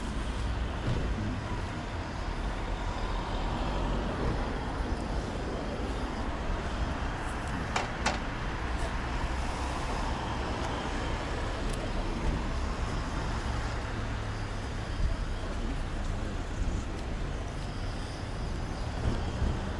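Steady road traffic and car park background noise, with a couple of light clicks about eight seconds in.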